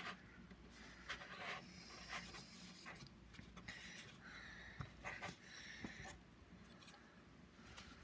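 Faint rubbing and scuffing of a cloth damp with isopropyl alcohol wiping a small computer case fan, with a few light clicks as the fan is turned over in the hands.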